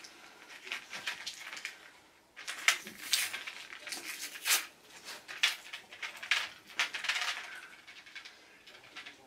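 Small objects handled on a table: irregular crackling, rustling and light clicks, with a short pause about two seconds in and busier crackling after it.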